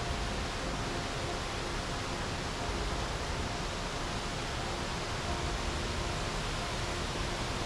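Steady rush of the Charpa Waterfall's falling water, an even unbroken roar with no change in level.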